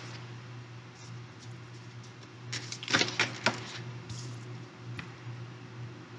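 Tarot cards being handled: a few faint clicks and soft rustles over a low steady room hum, with a brief murmur about three seconds in.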